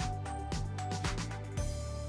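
Background music with a steady beat of about two strikes a second. The beat stops about one and a half seconds in, leaving a held final chord ringing.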